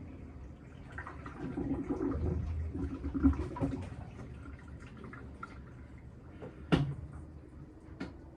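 Panasonic top-loading washing machine with water sloshing in the tub, swelling for about three seconds. Two sharp clicks follow near the end.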